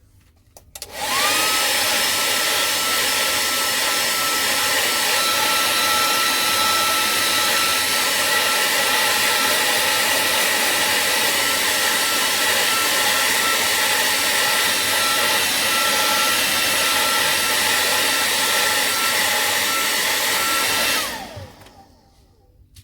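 Handheld hot-air blower running steadily for about twenty seconds, its motor whine rising as it starts and falling away as it switches off near the end.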